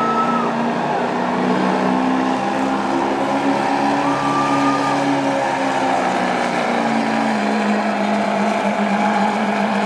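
Ford Super Duty diesel pickup running hard under full load while it drags a weight-transfer sled in a truck pull. The engine note holds steady, then sags a little lower over the last few seconds as the truck bogs down.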